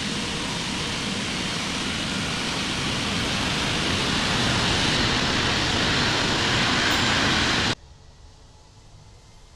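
Boeing 777 jet engines running, a loud steady rushing noise that builds slightly, then cuts off abruptly near the end, leaving only a faint hiss.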